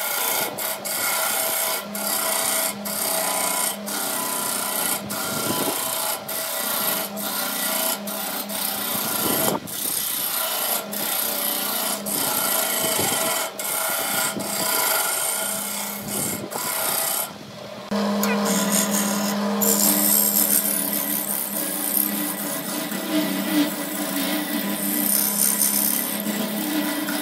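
Wood lathe running while a hand-held turning chisel cuts a spinning wooden vase blank: a steady scraping rasp over the lathe's hum, with brief breaks about once a second as the tool lifts off the wood. After a short pause about two-thirds through, the cut comes back louder.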